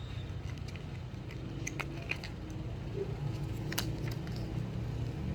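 A few light clicks and taps from RAM modules being handled and swapped, over a steady low hum.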